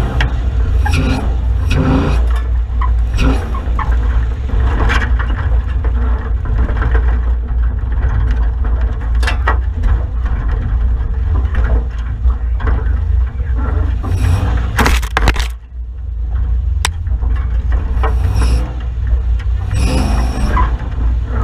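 Off-road 4WD driving over a rough bush track: a steady low engine rumble with frequent knocks and rattles from the vehicle working over the terrain, and a brief louder clatter about fifteen seconds in.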